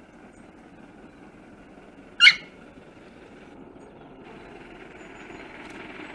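LMS Princess Royal class steam locomotive 6201 Princess Elizabeth, a four-cylinder Pacific, working toward the microphone from a distance, heard as a steady rumble that grows louder. About two seconds in, a single short, loud call from an animal or bird close to the microphone cuts over it.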